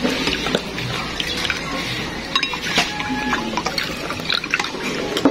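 Water poured in a stream from a plastic jug into a glass bowl of beaten egg, splashing and filling, with light clicks of wooden chopsticks against the glass as the mixture is stirred.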